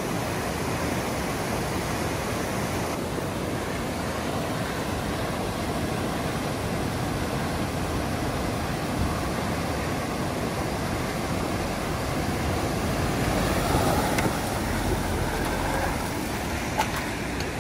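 Rushing mountain-river water and a Mahindra Thar SUV's engine running as the vehicle fords the stream. The sound swells about 13 seconds in as the Thar comes up out of the water close by.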